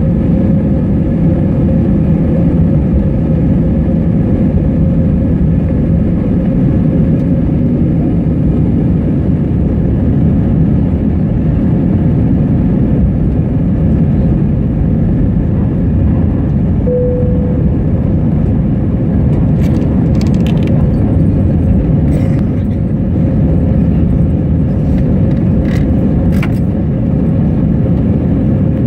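Aeroplane engines running at high power during takeoff: a loud, steady rumble with a steady hum in it. A few faint clicks come about two-thirds of the way in.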